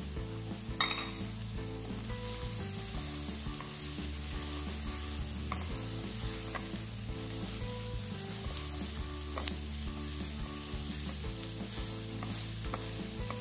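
Shredded chicken and onion sizzling in butter and olive oil in a nonstick frying pan while a silicone spatula stirs them, with a few sharp clicks of the spatula against the pan.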